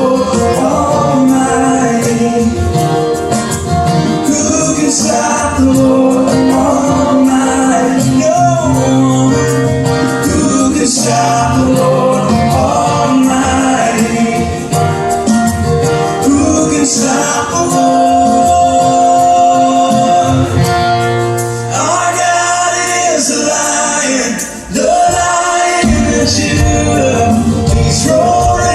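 Live acoustic worship music: group singing of a repeated refrain over acoustic instruments with percussion. The music dips briefly about three-quarters of the way through, then comes back in.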